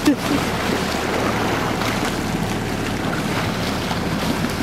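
Steady wind and sea noise aboard a fishing boat, with the boat's engine humming low and even underneath.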